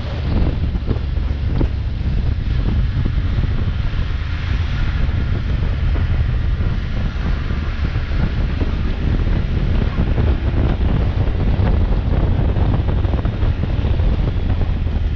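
Wind buffeting the microphone of a camera on a moving motorcycle, a steady low rumble throughout.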